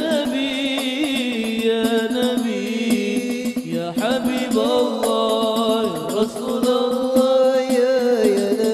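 Male solo voice singing a long, wordless, melismatic line of Islamic sholawat through a microphone, over steady held backing tones and light percussion.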